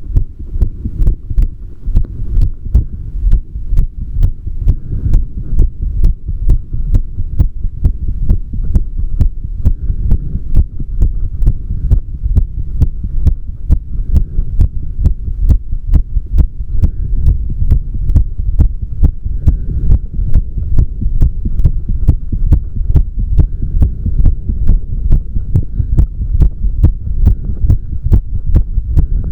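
Heart sounds: a heartbeat thumping in a steady, even rhythm over a low hum.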